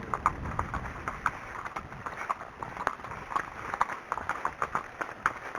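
Hooves of an Arabian horse clip-clopping on a hard road surface: a steady run of sharp clicks, about three to four a second.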